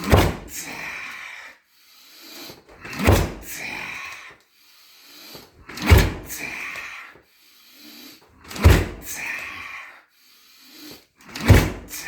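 Roundhouse kicks landing on a 60 kg heavy bag: five heavy thuds, about one every three seconds, each followed by a brief rustling tail.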